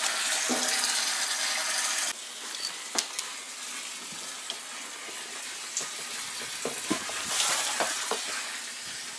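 Water gushing steadily. About two seconds in it cuts off abruptly to a quieter hiss, with scattered clicks and knocks and faint distant voices.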